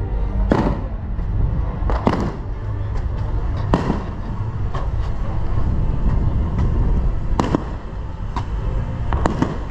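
Aerial fireworks shells bursting: a string of sharp bangs at irregular intervals, several coming close together near the end, over a steady low rumble.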